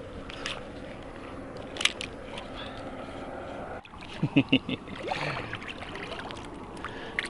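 Steady rush of flowing river water with a few sharp clicks; after a cut about four seconds in, a short burst of voice sounds without words.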